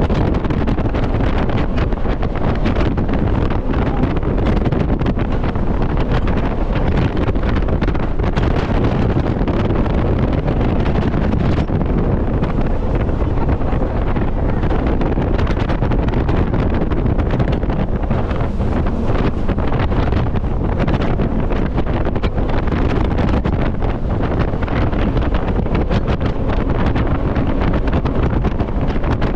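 Heavy wind buffeting the microphone on an open jet boat running at speed, over the steady rush of the boat's engine and the water.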